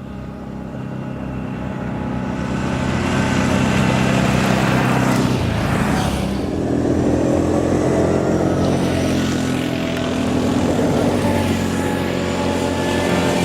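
ATV engines running as the machines ride along, growing louder over the first three seconds, with a brief sweep in pitch about six seconds in.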